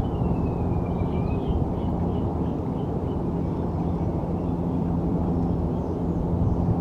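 Steady low rumble of city traffic with a constant hum running under it. Above it a small songbird gives a slurred whistle that falls then rises, followed by a quick run of short notes.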